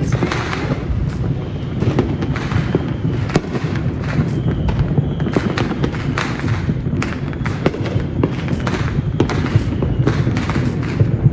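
Many fireworks and firecrackers going off at once: a dense, irregular run of sharp bangs and crackles over a constant low rumble.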